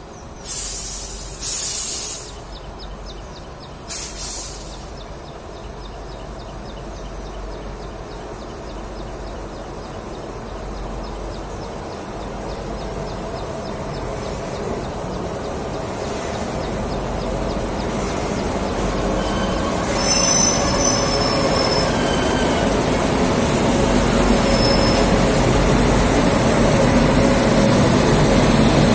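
An electric locomotive hauling a new BEML three-phase MEMU rake approaches and passes, its wheel and motor rumble growing steadily louder. Thin, high wheel squeals come in about two-thirds of the way through. Near the start there are two short, loud hissing rushes.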